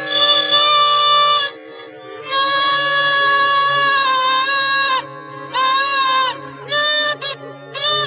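Pingu's nasal 'noot noot' honk stretched into long held notes: one note for about a second and a half, a longer one from about two seconds to five seconds in, then several shorter ones near the end. Underneath runs a steady low drone.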